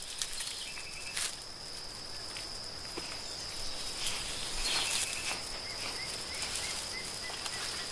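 Tropical forest ambience: a steady high-pitched insect drone, with faint short chirps and a couple of brief rustling sounds.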